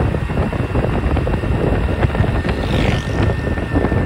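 Wind buffeting the microphone on a moving motorcycle, over the motorcycle's engine running steadily.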